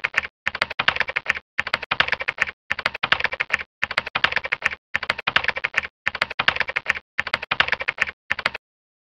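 Rapid computer-keyboard typing in even bursts of about a second, with short gaps between them, nine bursts in all. It cuts off abruptly near the end.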